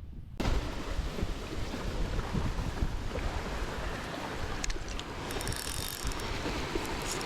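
Wind buffeting the microphone outdoors: a steady rushing noise with a heavy low rumble, starting suddenly about half a second in, with a few faint clicks later on.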